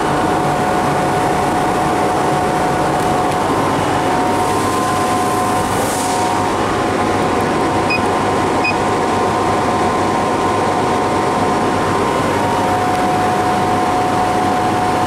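CO2 laser cutting machine running: a steady whir of its fans and air pumps with a constant hum tone. About eight seconds in, the control panel's keypad beeps twice in quick succession, and a brief hiss rises around five seconds in.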